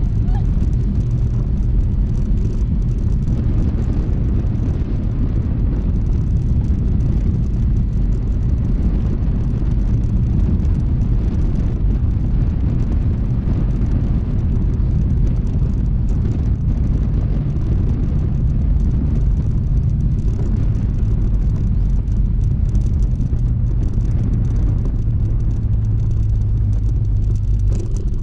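Honda ADV160 scooter's single-cylinder engine running steadily while riding, over a constant low rumble. Its hum firms up in the second half.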